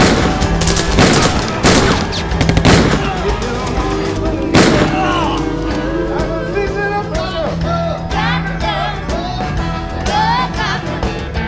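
Film gunfight soundtrack: several gunshots in the first five seconds over a music score, then the music carries on with wavering melodic lines.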